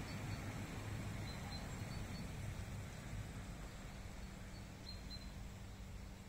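Quiet outdoor background noise: a low, steady rumble with a few faint, brief high chirps.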